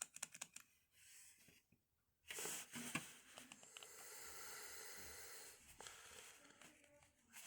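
Near silence with faint clicks and handling noises, and a soft steady hiss in the middle.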